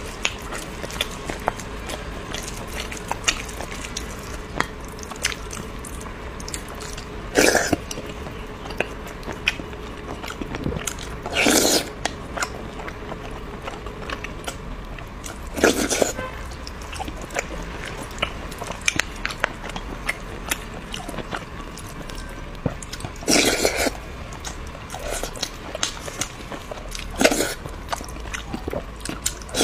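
A person eating, heard up close: steady chewing with many small wet clicks, and louder bites every few seconds, about five in all.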